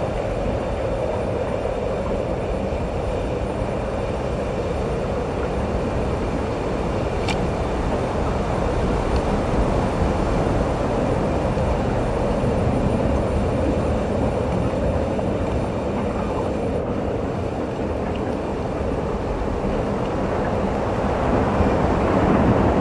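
Steady rumbling underwater ambient noise of the sea, picked up by a camera in its housing, with no distinct events.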